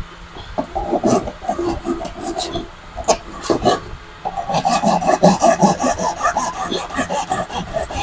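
Handsaw cutting across a wooden plank by hand: uneven strokes at first, then after about four seconds a fast, steady back-and-forth sawing rhythm.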